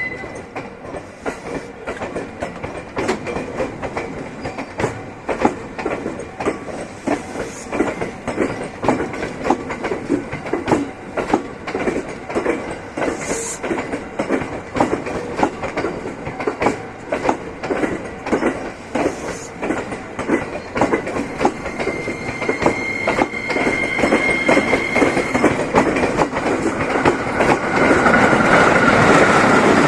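JR West 321 series electric train rolling slowly, its wheels clicking over rail joints in a long uneven series. A thin high squeal comes in about two-thirds of the way through, and the train grows louder near the end.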